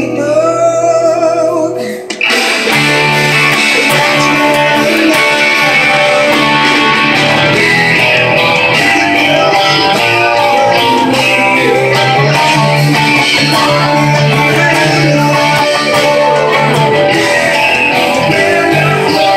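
Rock music led by a Jackson electric guitar, played with a band. About two seconds in there is a short break, then the full band comes back in with sustained bass notes under the guitar.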